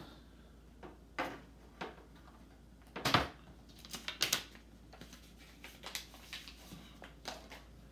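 A bare 32-inch LCD monitor panel being turned over and set down on a wooden table: scattered knocks and taps of its frame on the wood, the loudest a thud about three seconds in, then a few lighter clicks as it is handled.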